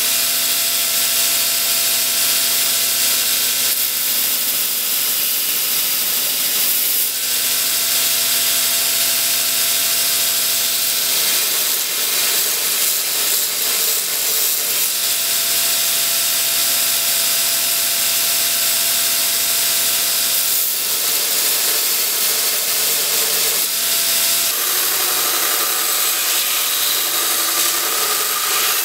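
Belt grinder running with a forged Damascus steel hatchet head pressed against the belt: a steady, loud grinding hiss over the motor's hum. The hum wavers several times as the steel is pressed in and eased off, and drops lower near the end.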